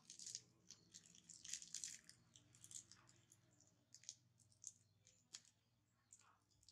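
Faint, scattered crackling of a plastic candy wrapper and soft mouth sounds of a baby monkey eating jelly candy from the wrapper as it is held out by hand, over a low steady hum.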